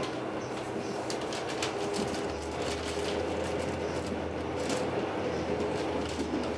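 Electric passenger train running, heard from inside the carriage: a steady rumble and hum with scattered sharp clicks. The low rumble grows heavier about two seconds in.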